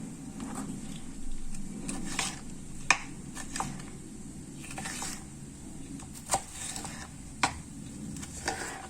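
Irregular knocks and clicks of kitchen utensils and dishes being handled on a counter, over a low steady hum.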